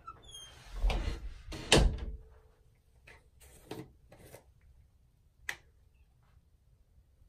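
Household background noise: two dull bumps close together about a second in, then a few faint clicks spaced across the next few seconds.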